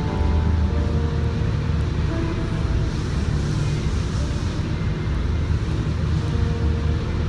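Spray booth machinery running with a steady low drone that holds at an even level throughout.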